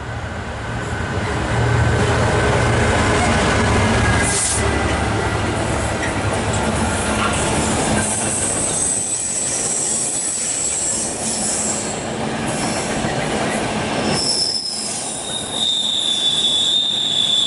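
Freight train of container flat wagons rolling past on the rails, a steady heavy rumble of wheels with a deep low drone in the first few seconds. High-pitched wheel squeals come in about halfway through, and a loud held squeal rings near the end.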